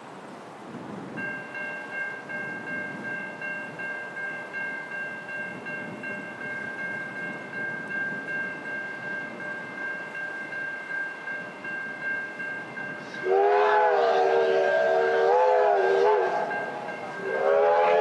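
Three Victorian Railways steam locomotives, a Y-class and two K-classes, working hard up a grade, exhaust beats pulsing about twice a second under a faint steady high tone. About 13 seconds in, the locomotives' steam whistles sound loudly together, wavering in pitch, break off briefly and sound again near the end.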